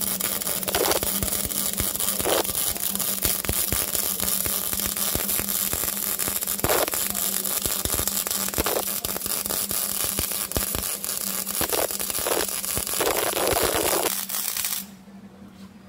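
Electric arc welding on a pipe: a steady, dense crackle and sizzle of the arc over an electrical hum, cutting off suddenly near the end as the arc is broken.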